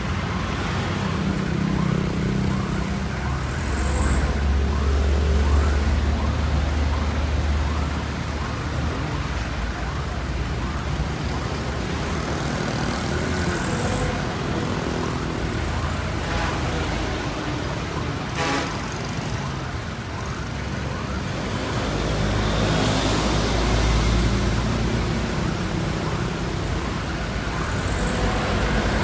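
Heli diesel forklift engine running steadily and revving up twice as its bale clamp attachment is worked hydraulically, with road traffic passing behind.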